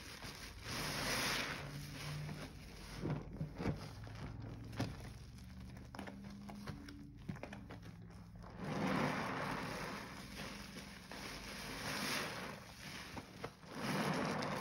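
Foam-soaked sponge squished and squeezed by gloved hands in a thick, bubbly paste of Comet cleanser, in several louder wet swells (about a second in, around nine seconds and near the end) with small crackles in between.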